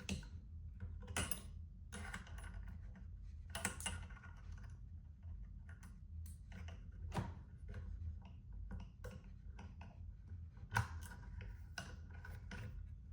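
Small screws and washers being handled and threaded into the nuts of a switch dock mounted on an M-LOK rail: irregular light clicks and ticks of small metal hardware, a few sharper ones about a second in, near four seconds, near seven seconds and near eleven seconds.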